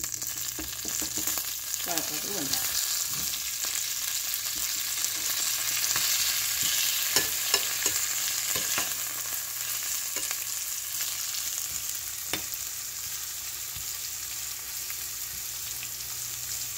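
Tempering of mustard seeds, fennel, dried red chillies, curry leaves and chopped onions sizzling in hot oil in a frying pan while being stirred with a metal spoon, with scattered sharp clicks.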